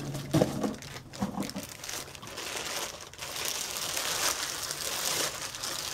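Plastic wrapping crinkling and rustling as a heavy Dutch oven in a clear plastic bag is lifted and handled, the crinkling densest in the second half, with a couple of light knocks near the start.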